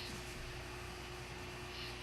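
Quiet room tone: a faint steady hiss with a low hum and a faint steady tone underneath, and no distinct sound event.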